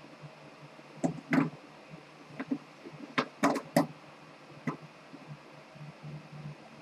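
A few faint, scattered clicks and small knocks, about seven of them, spread irregularly over a steady low hum.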